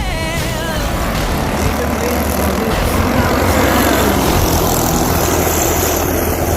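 Racing go-kart engines running at speed in a steady drone.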